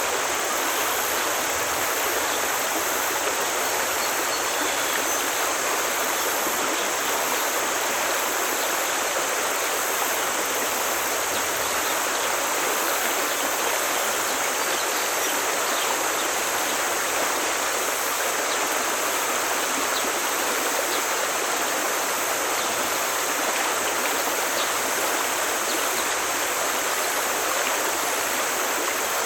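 A forest stream rushing steadily over rocks, with a constant even splashing and no change in level.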